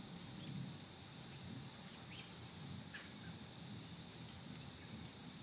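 Faint scattered bird chirps, a few short high calls, over a low steady background rumble.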